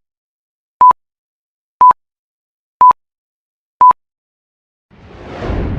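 Short electronic beeps at one steady pitch, once a second, four times, like an intro countdown sound effect. Near the end a rush of noise swells up for about a second and cuts off.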